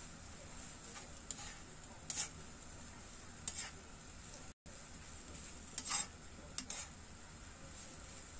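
Water spinach stir-frying in a nonstick wok: a steady sizzle of hot oil, with a spatula scraping and tossing the greens against the pan about six times at uneven intervals.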